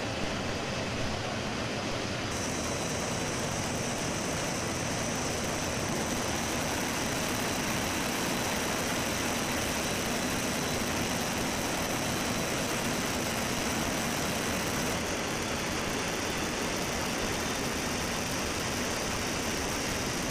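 Steady cabin noise inside a C-17 Globemaster III in flight: its four turbofan engines and the rush of air past the open paratroop door blend into one even, unbroken noise.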